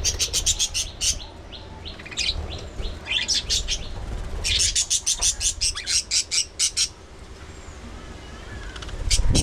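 Budgerigars chirping: bursts of rapid, high chirps, several a second, broken by short pauses, over a low rumble.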